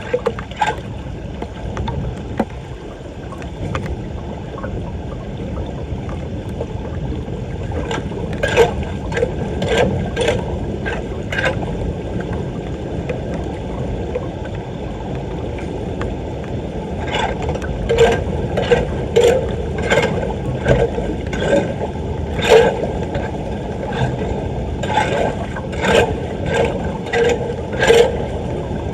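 Steady rush of floodwater draining, with a tool scraping debris off a street drain in repeated strokes about a second apart, first briefly about eight seconds in and then through most of the second half.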